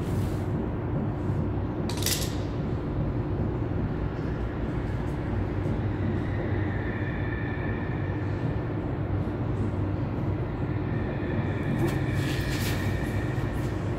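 A steady low mechanical hum and rumble, with a sharp click about two seconds in and another near the end, and a faint high tone that comes and goes in the second half.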